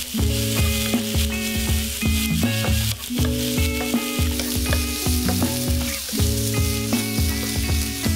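Pork belly slices and garlic sizzling in hot oil in a wok, stirred with a wooden spatula while the pork sears. Background music with changing notes and a bass line plays under the sizzle.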